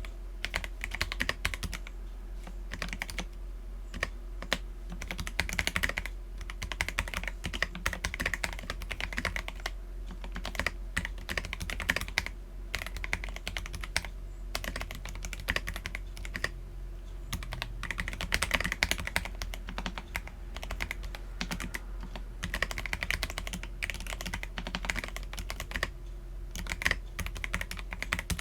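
Akko PC75B mechanical keyboard with lubed Akko Jelly Black linear switches and PBT keycaps, typed on continuously in quick, uneven runs of keystrokes over a faint steady low hum.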